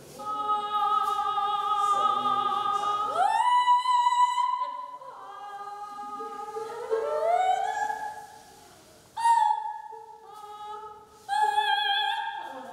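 A classically trained high singing voice holding long vibrato notes and sliding up in pitch several times, with short breaks between phrases, sung like a vocal warm-up exploring tone colour rather than a song.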